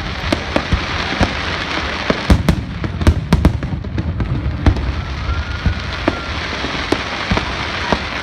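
Fireworks going off: a continuous crackle with many sharp bangs at irregular intervals, and a faint short whistle about five seconds in.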